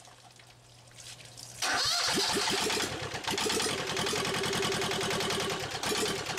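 Yanmar 2GM two-cylinder marine diesel starting: after a short quiet stretch, the electric starter cranks it about a second and a half in, it fires almost at once and then runs with a steady, even rhythm.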